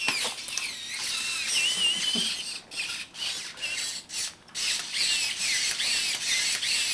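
Robopet robot dog toy running, its small gear motors whirring with high-pitched warbling squeaks over them.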